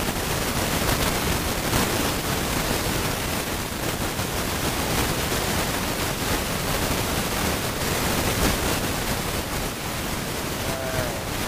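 Steady, loud rush of wind noise on a motorcycle-mounted camera's microphone while the bike is being ridden.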